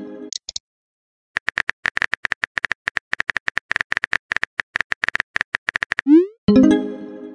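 Smartphone keyboard typing clicks, a rapid irregular run of short taps lasting several seconds, then a quick rising swoosh and a ringing chime as a text message is sent. A chime from the previous message is still fading out at the start.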